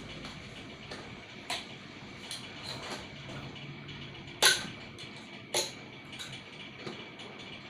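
Small metal clicks and taps from tools and metal parts being handled during a water pump's disassembly, with three sharper knocks, the loudest about four and a half seconds in.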